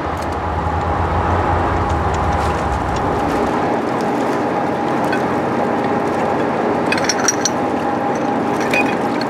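A steady engine drone with a low hum in the first few seconds, and heavy steel log-boom chains clinking sharply a few times about seven seconds in and again near the end as they are handled on the floating logs.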